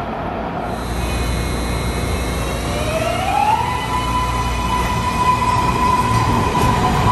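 MARTA rapid-transit train accelerating away: a low rumble of wheels and running gear, then the traction-motor whine rises in pitch about two and a half seconds in and levels off into a steady high whine.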